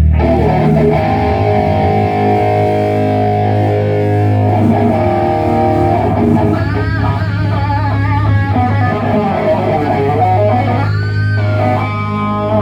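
Amplified electric guitar played over a steady, sustained low bass note, with several bent and wavering notes about halfway through and again near the end.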